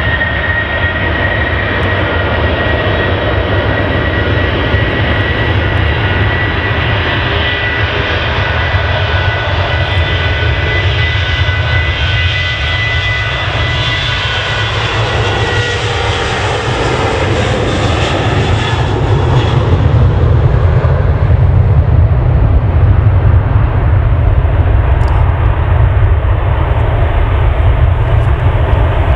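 Twin-engine widebody jet airliner on final approach with gear down: steady jet engine noise with a high whine that dies away a little past halfway, while a low rumble grows louder toward the end as the aircraft comes closer.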